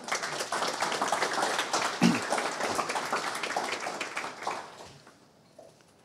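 Audience applauding, dying away about five seconds in.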